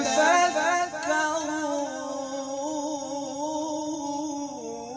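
A man reciting the Quran in melodic tajweed style, drawing one word out into a long ornamented note. It starts with quick melodic runs, then settles into a held tone that wavers up and down and slowly gets quieter.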